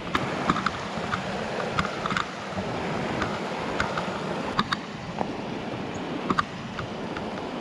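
Footsteps crunching on a dirt trail, irregular clicks a few times a second, over the steady rush of a mountain creek.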